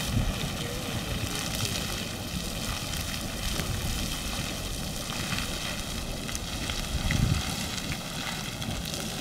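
Beehive Geyser erupting: a steady hissing rush of water and steam jetting from its cone, with a low rumble beneath that swells a little about seven seconds in.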